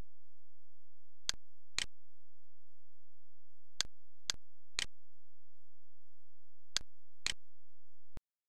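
Computer mouse clicks over a steady low electrical hum. There is a pair of clicks, then three, then another pair, each half a second apart. A last click comes near the end, just as the hum cuts off suddenly.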